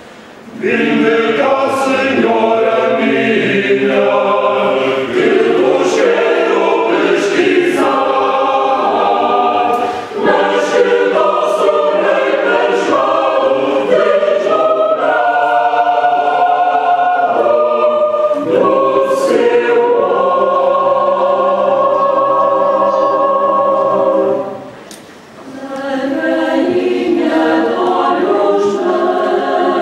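Mixed choir singing a cappella. The voices break off briefly about ten seconds in and pause again near twenty-five seconds before coming back in.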